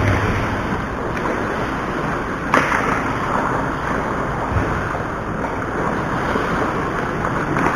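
Ice hockey rink noise picked up by an action camera: a steady rushing hiss, broken by a few sharp knocks, the sharpest about two and a half seconds in.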